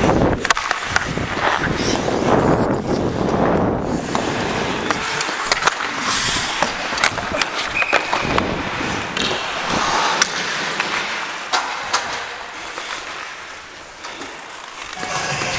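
Ice skate blades scraping and carving on rink ice as the skater moves, with many sharp clacks of hockey sticks and puck against the ice and boards. The scraping dies down near the end.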